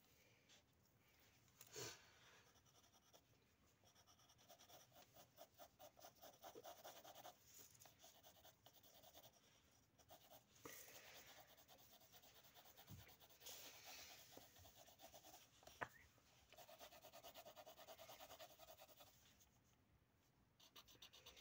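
Faint scratching of pencils on paper as two people draw, in stretches of quick back-and-forth strokes like shading. A single sharp tap about three-quarters of the way through.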